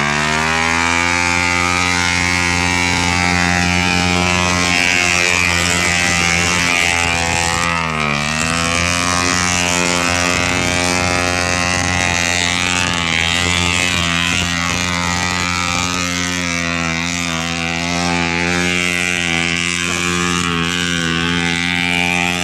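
Vehicle engine running hard off-road: its pitch climbs as it revs up at the start, drops and recovers about eight seconds in, then holds steady, with a rushing noise of wind and terrain over it.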